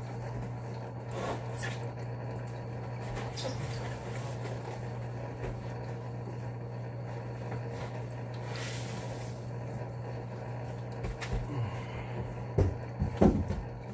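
A cardboard shipping box being unpacked by hand: soft rustling and scraping of cardboard and paper as a styrofoam fish-shipping cooler comes out of it. A few louder knocks come near the end, over a steady low hum.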